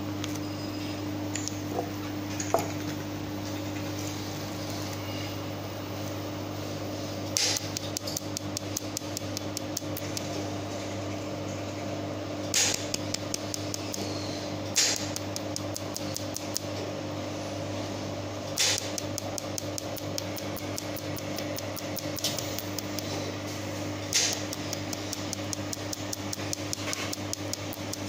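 Pulsed mold-repair laser welder firing on a metal part with hand-fed filler wire: rapid, evenly spaced ticks of the laser pulses, starting a few seconds in, over the welder's steady hum. Five louder sharp snaps stand out among the ticks.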